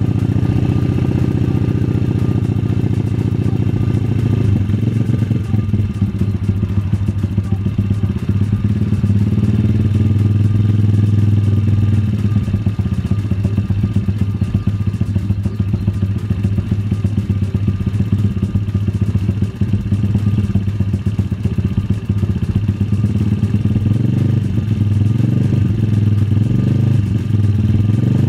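A new MRF pitbike's single-cylinder four-stroke engine idling steadily on its stand with the choke off, still warming up before being run in.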